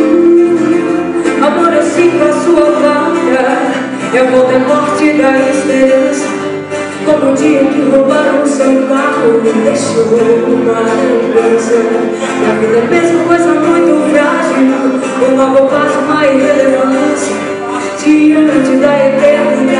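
A small live band playing a song on guitars, with a woman singing into a microphone, through a PA system.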